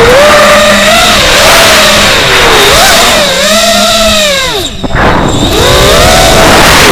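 FPV drone's electric motors whining loudly, pitch rising and falling with the throttle over a rushing noise, briefly dropping away about two-thirds through.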